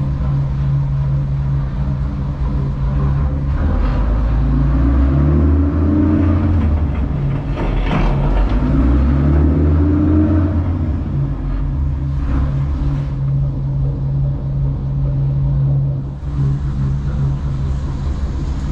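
Dutch barge's diesel engine running at low speed, its revs rising and easing back twice in the middle, then settling to a steady note.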